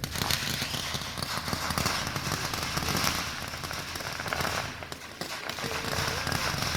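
Fireworks crackling: a dense, rapid run of small pops that starts suddenly, thins briefly about five seconds in, then picks up again.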